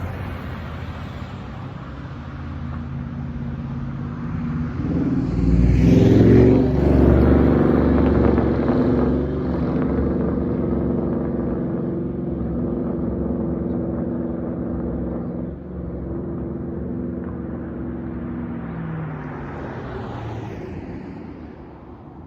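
Dodge Charger Daytona's V8 through a Flowmaster Outlaw exhaust at low street speed. It grows louder about five seconds in, holds a steady drone, then drops in pitch and fades near the end.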